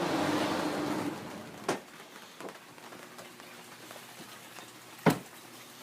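Rain hiss, loudest in the first second and then softer, broken by a few sharp knocks, the loudest about five seconds in.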